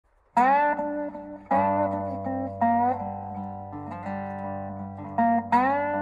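Background music on a plucked guitar-like string instrument: single notes struck every second or so, each bending upward in pitch as it starts and ringing out, over a steady low drone.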